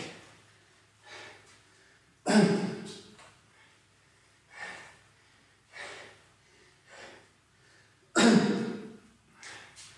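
A man breathing hard while he recovers from a high-intensity interval, out of breath: heavy exhalations roughly every second, two of them loud, forceful puffs about two and eight seconds in.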